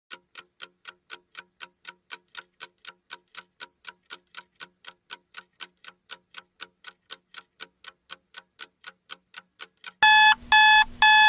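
Countdown-timer sound effect: a clock ticking evenly about four times a second for ten seconds, then three loud electronic alarm beeps about ten seconds in, signalling that time is up.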